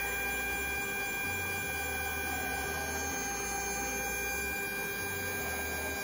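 3D printer running a print, its stepper motors giving a steady whine of several held tones over a low, shifting rumble.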